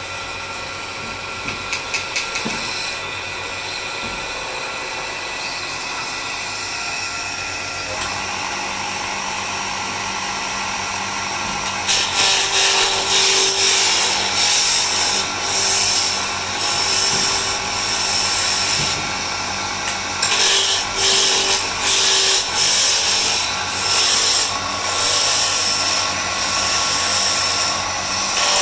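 Small electric wood lathe running with a steady hum. From about twelve seconds in, a hand-held gouge cuts the spinning wooden blank in repeated passes, a loud rough hiss broken by short pauses.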